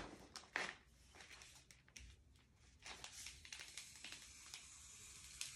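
Near silence with a few faint taps and light rustles of a thin clear plastic photo-album sleeve being handled and pressed flat on a cardboard template.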